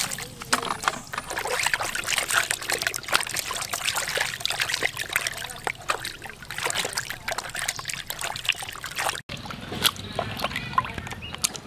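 Hands washing raw cow tongue and offal in a plastic basin of water: irregular splashing and sloshing with many small wet slaps. The splashing stops abruptly about nine seconds in, leaving fainter drips and taps.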